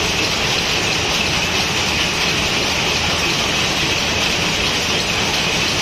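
Steady, dense mechanical clatter of screw-making machinery running, an even din with no pauses.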